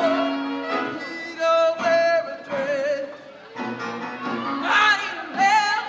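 A female lead singer belts into a microphone over show-choir music, holding long notes with a wavering vibrato near the end.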